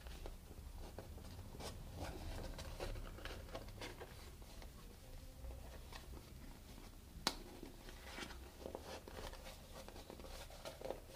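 Faint handling noises from a rubber boot shaft being worked by hand: soft rubbing and scattered light knocks, with one sharp click about seven seconds in.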